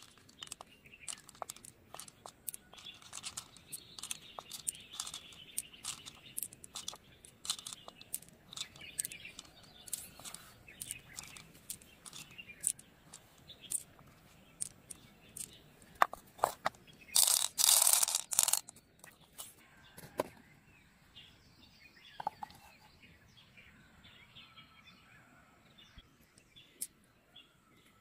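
Loose pearls clicking against each other and against the nacre of an opened mussel shell as they are picked out by hand, in many small irregular ticks. A louder scraping noise lasts about a second and a half around two-thirds through. Birds chirp faintly in the background.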